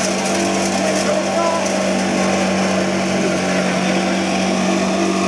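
Small chopper-and-grinder machine running at a steady high speed with a constant hum while leaves are fed into its hopper.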